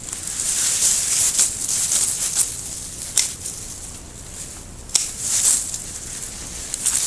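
Dry Japanese maple leaves and twigs rustling in swells as a hand pushes through the branches, with a few sharp snips of pruning shears cutting twigs, the crispest about three and five seconds in.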